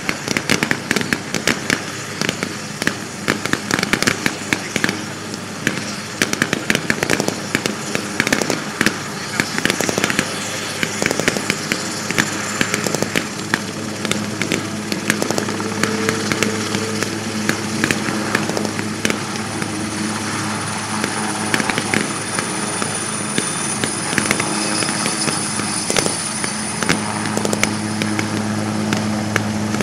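Super Puma helicopter's twin turboshaft engines and four-blade main rotor running, with a steady low hum. The hum grows from about halfway, a high turbine whine comes in later, and the hum is strongest near the end as the helicopter lifts off. Irregular sharp cracks sound throughout, densest in the first half.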